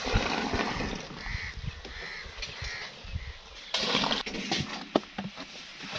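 A wooden scraper scrapes and knocks against a jaggery cooling tray as thick, hot sugarcane syrup is spread out. A burst of scraping comes about two-thirds of the way in, followed by several sharp knocks.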